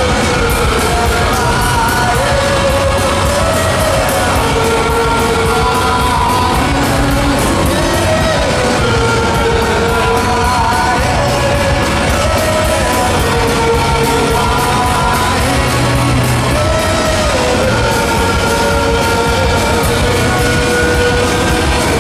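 Loud rock music with a steady, driving drum beat and a wavering sung or played melody line, with some yelling.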